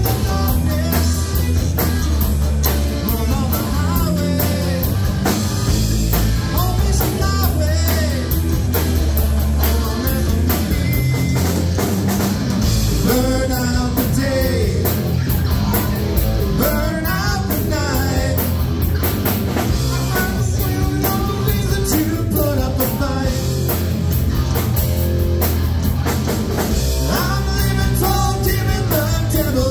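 Live rock band playing: a male lead singer over electric guitar, bass guitar and drum kit.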